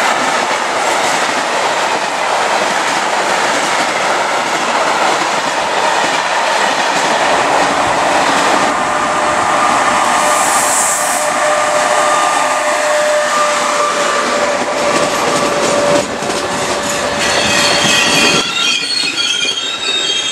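Freight wagons of a rolling-highway train rattling past over the rail joints. From about nine seconds in, a Trenitalia E 464 electric locomotive with a regional train comes in with steady wheel squeal and a brief sharp hiss, and higher-pitched squealing follows near the end.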